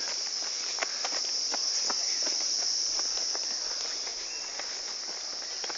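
A steady, high-pitched drone of insects singing in woodland, with faint scattered ticks of footsteps on a path.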